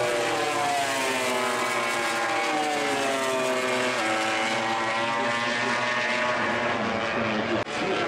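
MotoGP racing motorcycle engines at high revs, their pitch sliding down over the first few seconds as the bikes brake and pass, then a new engine note taking over about halfway through.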